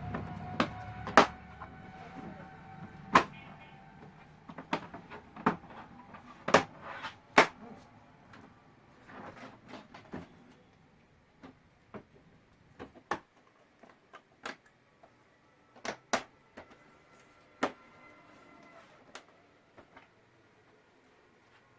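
Irregular sharp clicks and knocks, more than a dozen, from an LED TV's panel and casing being handled during reassembly; they are denser and louder in the first half.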